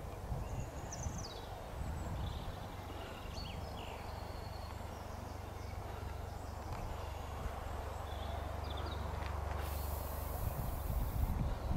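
Rural outdoor ambience: birds chirping now and then over a steady low rumble. About ten seconds in comes a burst of hiss lasting a second or two.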